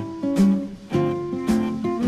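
Background music: an acoustic guitar strummed in a steady rhythm, a chord about every half second.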